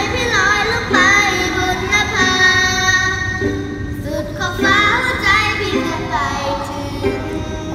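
A child's voice singing a Thai song, with vibrato on held notes, over backing music.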